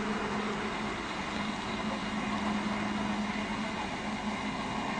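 Steam train running in the distance on an old film soundtrack: a steady, unbroken rumble-like noise with a constant low hum under it.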